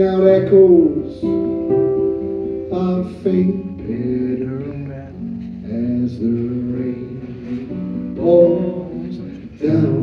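A man singing a slow song live while accompanying himself on an acoustic guitar, the voice holding and sliding between long notes over the strummed chords.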